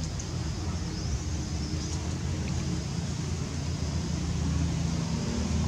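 Steady low outdoor rumble, with a few faint high-pitched chirps; no monkey calls stand out.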